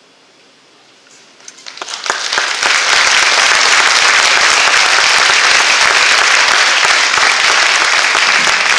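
Audience applause. It starts after a brief lull, builds over about two seconds into dense, steady clapping, and holds.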